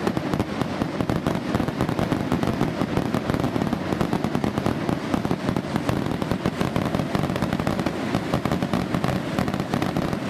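Diwali fireworks and firecrackers going off together: a dense, continuous crackle of many rapid pops at a steady level.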